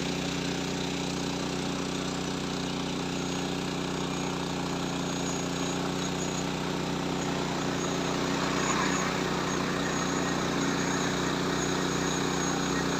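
Six-rotor agricultural spraying drone running, its rotors making a steady, even hum.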